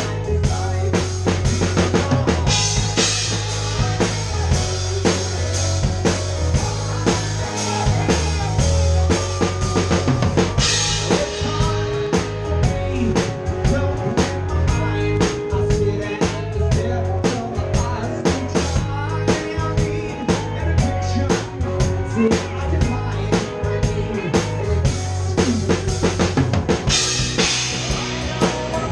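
Live band playing a song, with the drum kit loud and close: kick drum, snare and rimshots driving a steady beat over bass and guitar. Cymbal crashes come in about two and a half seconds in, around ten seconds in, and again near the end.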